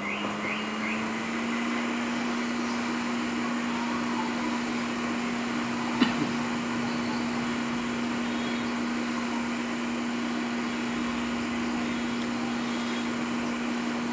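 Hot air rework station blowing steadily, its fan hum rising briefly at the start and then holding one pitch; a single sharp click about six seconds in.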